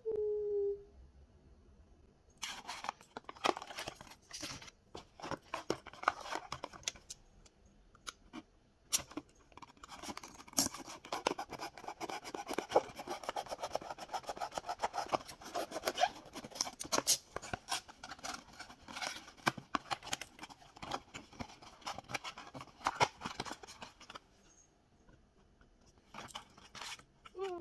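A small cardboard blind box being handled and opened by hand: dense rustling, scraping, crackling and clicks of card and packaging. It is busiest in the middle stretch and quieter near the end. A brief falling pitched sound comes at the very start and again at the very end.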